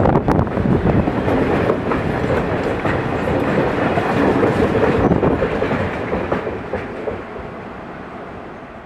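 Container wagons of a freight train rolling past at speed, steel wheels running on the rails with a few sharp clacks early on. The sound gets steadily quieter over the last few seconds.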